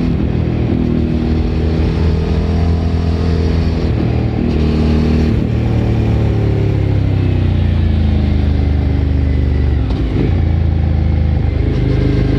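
Suzuki V-Strom 1000 V-twin with an aftermarket Remus exhaust under way. Its pitch shifts with throttle and gear changes, with a long steady fall in pitch midway as the bike slows.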